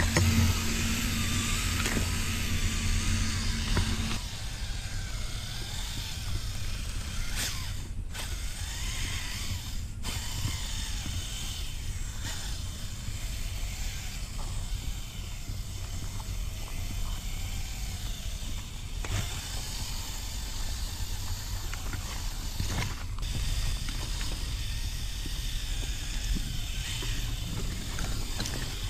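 Axial Capra RC rock crawler's electric motor and geared drivetrain whining, its pitch wavering with throttle as it crawls over gravel and brush, with a low steady hum in the first four seconds and a few sharp knocks.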